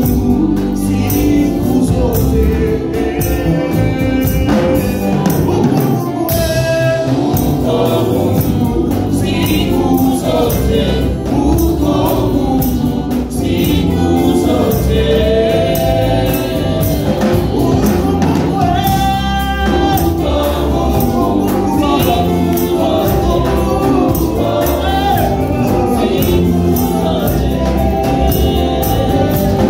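Live gospel song: a male lead singer on a microphone with a choir of women singers, backed by a band with drums and a shaken tambourine keeping a steady beat.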